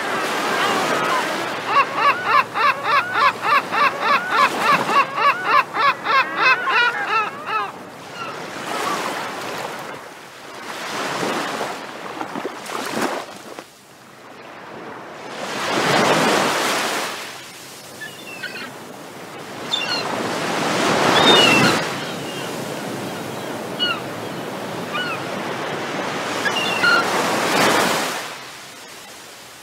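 Sea waves washing in and breaking in slow swells every few seconds. Over the first several seconds a bird gives a rapid run of repeated calls, about three a second, and short bird chirps are scattered through the later swells.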